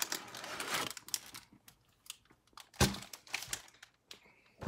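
Wrappers of a stack of 2020 Panini Prizm trading-card packs crinkling and rustling as the packs are lifted out of the cardboard hobby box, with scattered light clicks and one sharp knock about three seconds in.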